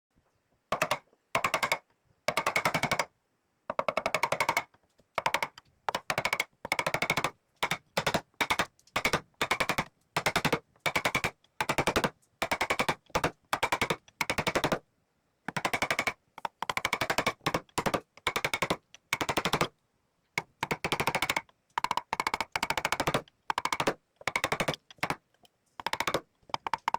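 Rapid rattling clicks, many to the second, in short bursts of a quarter second to about a second, separated by abrupt gaps of dead silence.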